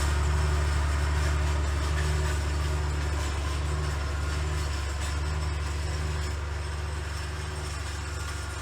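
Farm tractor engine running steadily with a deep, even drone, slowly growing quieter.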